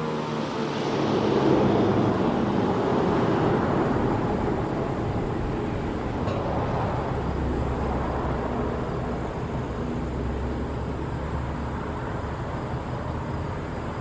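The Federal Signal 2001-SRN siren's single falling tone dies away in the first moment as its chopper rotor coasts down at the end of the alert. Then there is a steady rushing outdoor noise with no tone in it, swelling about two seconds in.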